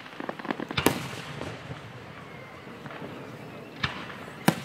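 Aerial firework shells bursting: a patter of small pops in the first second and a half, a sharp bang about a second in, and two more bangs near the end, the last the loudest.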